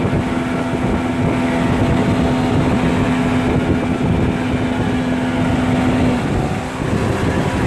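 Motorboat engine running at speed under a rush of water and wind buffeting the microphone. Its steady note drops away about six seconds in.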